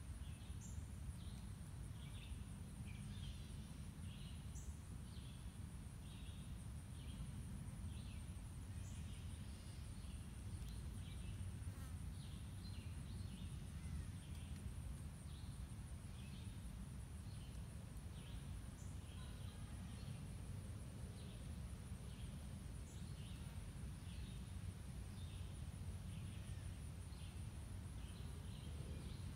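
Outdoor summer insect sound: a steady high-pitched drone with short chirps repeating about once or twice a second, over a constant low rumble.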